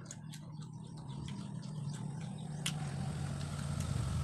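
A motor vehicle's engine running steadily with a low hum that grows gradually louder, as if approaching, with a few sharp clicks over it.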